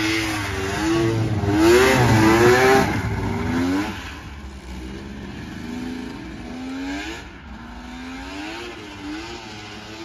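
Polaris XCR 600 snowmobile's two-stroke triple engine revving up and down as the sled rides. It is loudest in the first three seconds and fades as the sled moves away.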